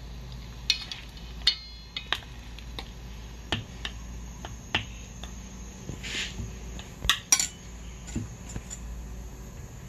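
Wooden chopsticks and a metal spoon clicking and tapping against a stainless steel bowl and a ceramic bowl while coating frog legs in flour: a dozen or so scattered sharp clicks, one about a second and a half in ringing briefly like metal, with a short hiss or two near the middle, over a steady low hum.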